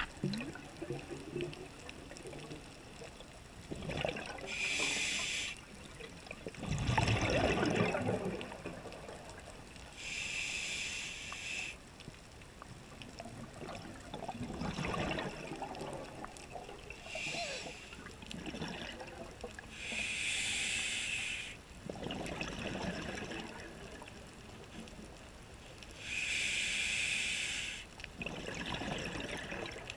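Scuba diver breathing through a regulator underwater. A high hiss on each inhale is followed by a gurgling burst of exhaled bubbles, a breath every five to six seconds.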